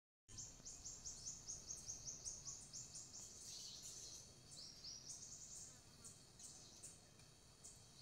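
Faint, rapid series of high chirps from a forest animal, about four a second, fading out a little past halfway, over a quiet hiss of forest background.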